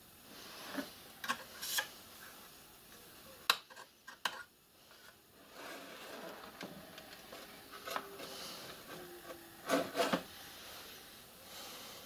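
Faint scattered clicks and short rubbing noises of hand-worked metal parts on a small home-built lathe as its handwheel and slides are moved by hand.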